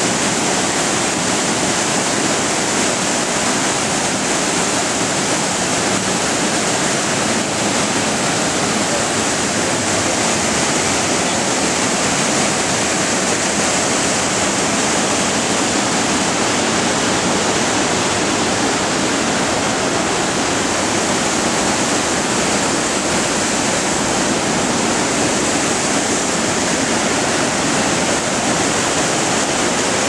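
Waterfall pouring steadily: a loud, even rush of falling water that does not change.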